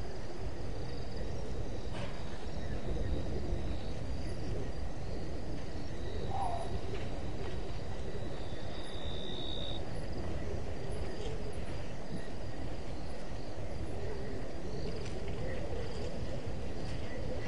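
Night bush ambience: insects trilling steadily at a high pitch over a constant low rumble, with a louder high buzz lasting about a second midway through and a short chirp just before it.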